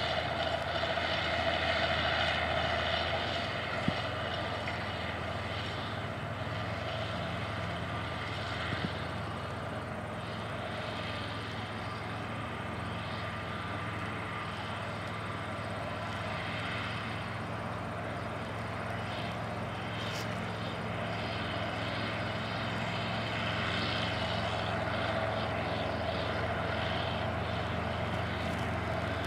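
Allis-Chalmers 200 tractor's turbocharged six-cylinder diesel engine running steadily under load as it pulls a tandem disk. It grows fainter as the tractor moves away, then louder again near the end as it comes back.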